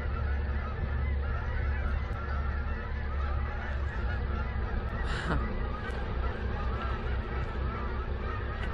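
A flock of birds honking again and again over a steady low rumble. A single sound sweeps down in pitch about five seconds in.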